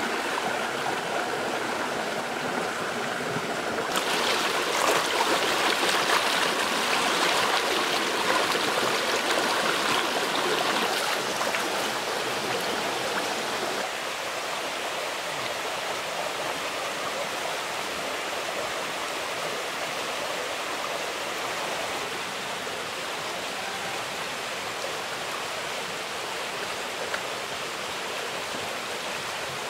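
Shallow rocky stream rushing and splashing over boulders in a steady watery rush. It grows louder about four seconds in and settles back a little after about ten seconds.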